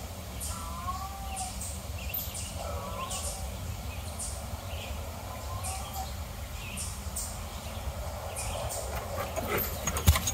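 Animal calls: short whistled calls that rise and fall, scattered high chirps every second or two, and a steady low rumble underneath.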